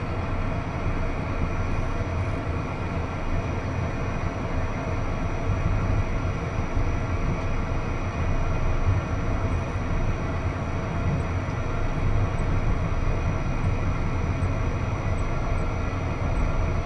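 Twin turbofan engines of a Beechcraft Premier I jet at taxi power, heard from inside the cabin as a steady rumble with a thin high whine.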